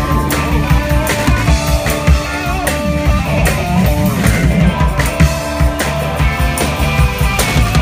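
Live rock band playing: electric guitar over a drum kit keeping a steady beat.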